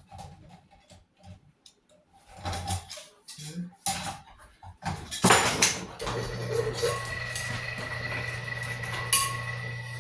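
Clicks and knocks of copper wire being handled and fed into a wire stripping machine. About five seconds in there is a loud rasp as the machine takes the wire, and it settles into a steady motor hum with a high whine as it works at insulation that is stuck to the copper.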